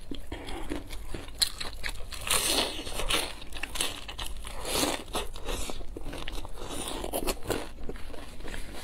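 Close-miked crunching and chewing of a crisp deep-fried dumpling crust, with sharp crackling clicks and several louder crunchy bursts as it is bitten and chewed.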